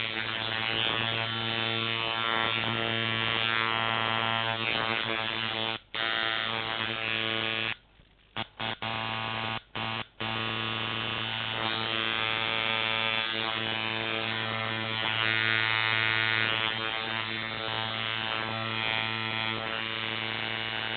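Iron mini liner coil tattoo machine running with a steady, even-pitched buzz. It cuts out briefly about six seconds in, then stops and restarts several times in quick succession between about eight and ten seconds, before running steadily again.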